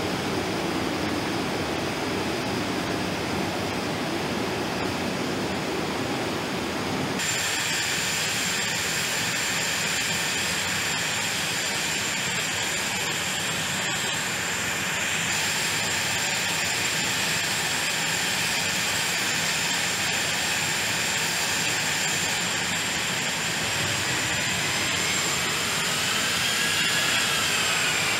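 A-10 Thunderbolt II jet engines running on the ground with a steady rushing noise. About seven seconds in, the sound changes abruptly to a steadier high whine. Near the end, a whining tone rises and then falls.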